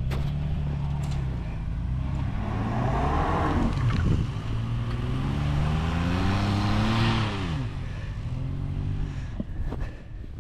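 Vehicle engine running under load, revving up over a few seconds and then dropping back sharply about three-quarters of the way through, with a hiss alongside at its peak.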